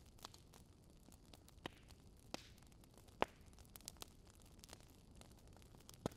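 Near silence with faint hiss and scattered, irregular crackling clicks, the loudest a little past the middle and a pair near the end.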